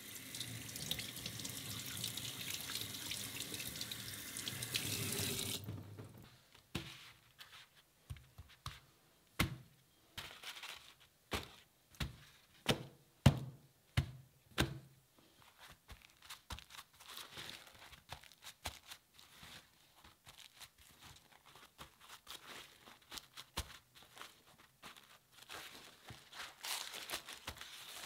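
Kitchen tap running and splashing over a raw tuna loin held in a steel sink for about five and a half seconds, then shutting off. A string of separate sharp slaps and knocks follows as the wet fish strips are laid down on paper. Paper rustles near the end.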